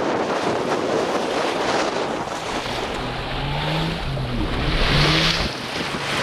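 Wind buffeting the microphone and water rushing and splashing along the hull of a Chrysler 22 sailboat driving through choppy water in strong wind, with a louder wave splash about five seconds in.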